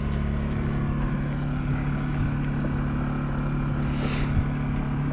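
Boat's onboard engine running with a steady low hum.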